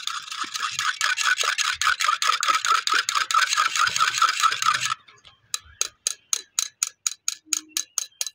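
Wire whisk beating an egg in a small clay cup: a fast, even clicking and scraping of the wires against the earthenware, about six strokes a second. About five seconds in it turns quieter and slower, about four clicks a second.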